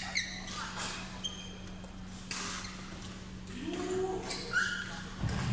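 Badminton shoes squeaking on the court floor in short chirps during a doubles rally, with a few sharp smacks of racket on shuttlecock and a steady low hum underneath.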